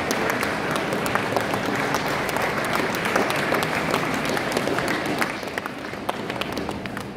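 Audience applauding, a dense patter of many hands clapping that dies down over the last couple of seconds.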